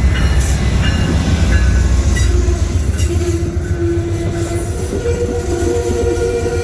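Amtrak passenger train rolling in, a heavy low rumble with wheels clicking over the rail joints. A steady pitched tone comes in about halfway through and grows stronger near the end.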